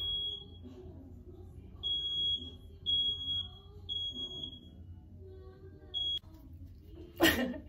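Smoke alarm sounding its high-pitched beep, three half-second beeps about a second apart, a pause of more than a second, then the next beep begins.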